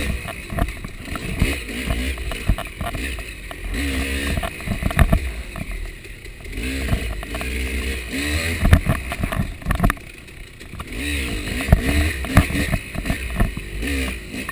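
KTM 300 two-stroke enduro bike engine revving up and down again and again as it is ridden over rough trail, with frequent knocks and clatter from the bike over the ground. The engine drops off briefly about ten seconds in.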